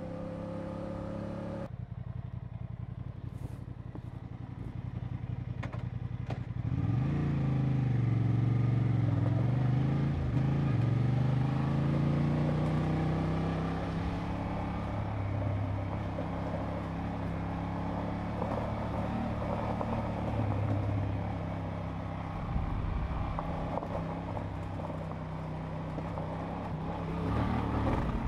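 Adventure motorcycle engines on a dirt track. The engine revs up and down several times a few seconds in, then runs at a steadier pace.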